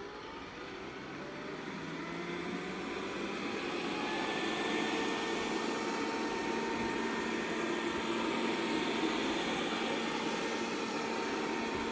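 Robit V7S Pro robot vacuum in spot-cleaning mode: its motors spin up, growing louder over the first few seconds, then run at a steady hum.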